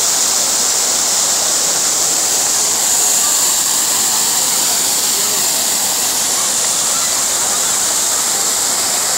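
Large fountain's jets spraying and falling back into the basin: a steady rush of water with no break.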